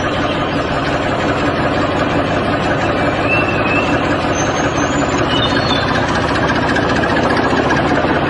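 A motor running steadily with an even engine-like hum, the running sound of a DIY toy mini tractor.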